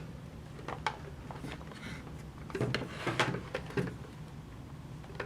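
Light clicks and scrapes as a drive is pushed into the slot of a SATA docking station, with a short cluster of knocks in the middle as it is worked into place.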